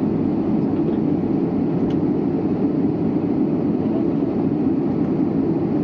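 Steady, even rushing cabin noise inside an Airbus A319 airliner.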